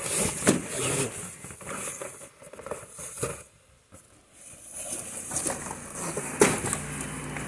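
Cardboard boxes being handled and shifted about in a carton: irregular rustling and knocks. There is a brief lull about halfway, and the loudest knock comes about six and a half seconds in.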